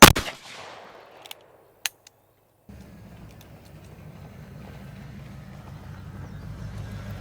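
A single loud gunshot with a short echo, followed by two light clicks. About two and a half seconds in, the sound cuts to a steady low rumble that slowly grows louder.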